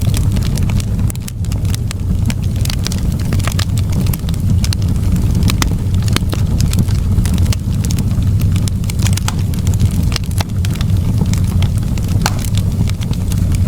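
Fireplace fire crackling, with frequent sharp pops and snaps scattered irregularly over a steady low rumble.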